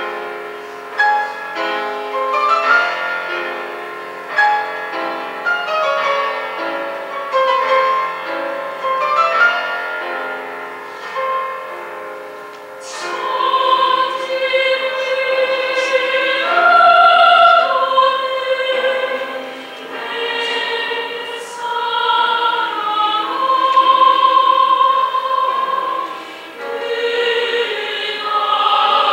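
A choir singing with piano accompaniment. The piano plays alone at first in separate, decaying notes, and the choir comes in about 13 seconds in, louder and fuller.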